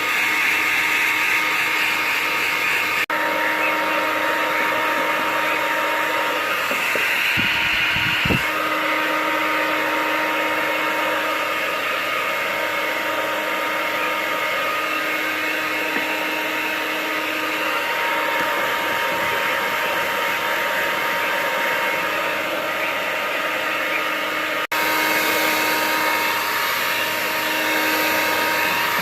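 Hair dryer blowing steadily, a rushing airflow with a constant motor whine, with a brief low knock about eight seconds in.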